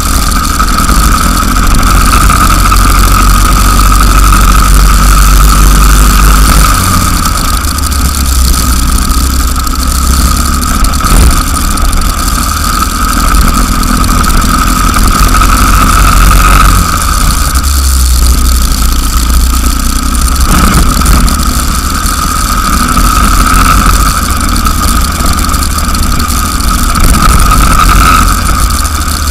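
Racing kart engine running hard on track, a steady high buzz that wavers slightly a few times as the karts brake and accelerate through corners, over a heavy low rumble.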